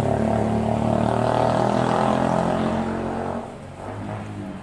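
A motor engine running steadily, then dropping away sharply about three and a half seconds in.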